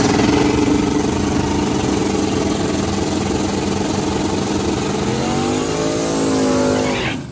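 Drag-racing car engine accelerating hard, its pitch climbing, holding fairly steady, then climbing again near the end before the sound cuts off abruptly.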